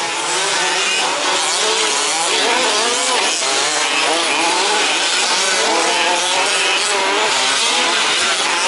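Several 1/5-scale two-stroke petrol RC trucks racing together, their small engines buzzing and overlapping, each pitch rising and falling as they rev up and back off around the track.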